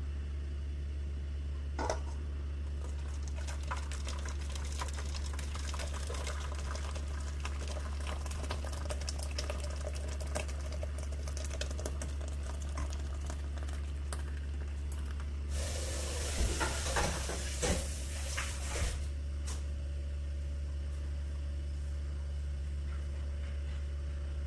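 Hot pandan agar-agar mixture being poured from a saucepan into an aluminium cake tin: liquid pouring and splashing into the tin. The pour is loudest for a few seconds about two-thirds through, then stops, leaving a steady low hum.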